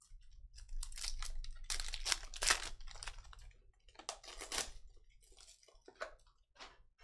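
Crinkling and tearing of a trading-card pack wrapper as it is ripped open by hand, in several short crackly bursts, with cards rubbing and sliding against each other as they are handled.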